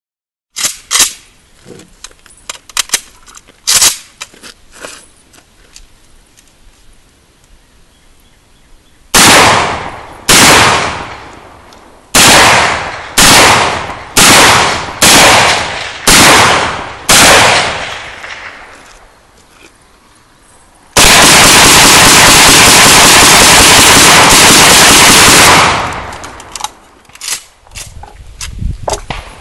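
Romanian Draco AK-pattern pistol in 7.62x39 firing. First a few sharp cracks, then about nine single shots roughly a second apart, then after a short pause a rapid string of shots lasting about five seconds that runs together into one continuous overloaded burst.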